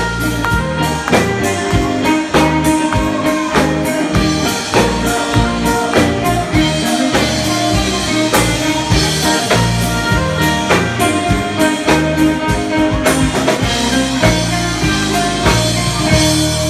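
Live band playing through PA speakers: a drum kit keeping a steady beat under amplified electric guitar.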